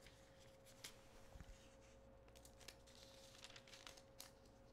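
Near silence: room tone with a faint steady hum and a scattering of faint small clicks and rustles.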